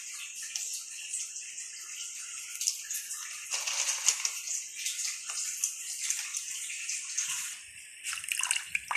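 Pot of water with whole spices heating on the stove: a steady hiss with fine crackling from small bubbles as it comes toward the boil.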